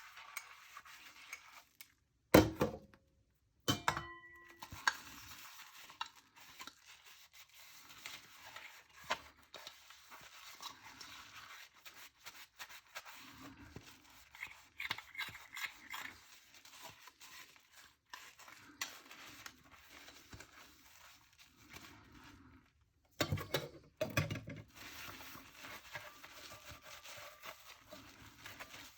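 Dishes and cutlery clinking and knocking together while being washed by hand, with a few louder clatters a couple of seconds in and again late on.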